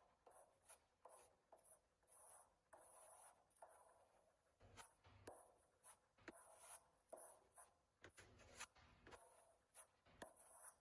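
Sanding block rubbed by hand over body filler on a truck's fiberglass fender: faint, rhythmic scratchy strokes, about two a second.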